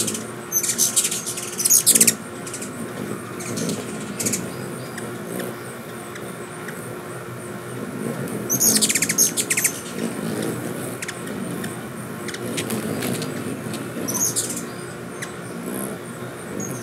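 Ruby-throated hummingbirds chattering: rapid, high, twittering chips in short bursts, one in the first two seconds and another about eight to ten seconds in, with fainter chips between. This is the chase chatter of several birds contesting a feeder.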